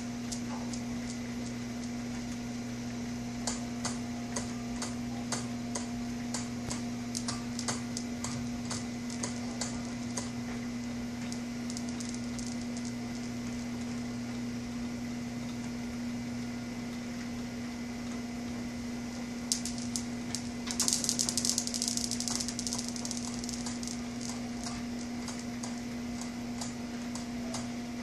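Newton's cradle balls clicking against each other at irregular intervals as a cat paws at them, with a dense flurry of louder clicks about three-quarters of the way through. A steady low hum runs underneath.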